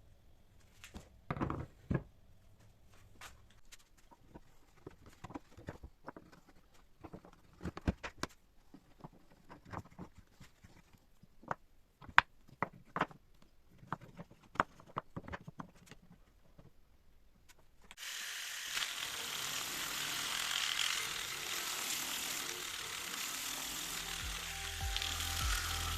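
Scattered light clicks and knocks of workshop handling, then a steady hiss that starts suddenly about two-thirds of the way through. Background music comes in near the end.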